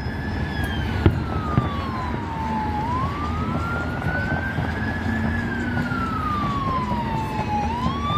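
Emergency vehicle siren in a slow wail, its pitch gliding down and back up about every five seconds, heard over a steady background rumble.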